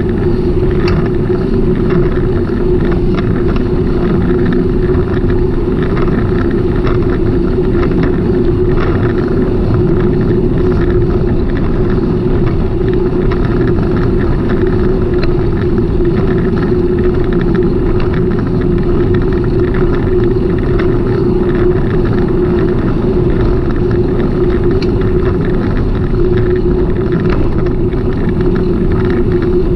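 Steady rumble of a bicycle ride with a constant hum underneath, unbroken and even in level.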